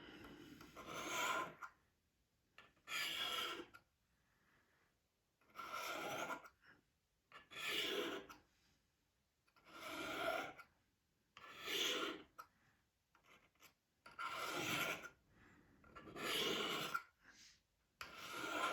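Knife blade drawn down the alumina ceramic rods of a Lansky Turnbox sharpener. There are about nine scraping strokes, each about a second long, one every two seconds or so. These are sharpening passes honing the edge.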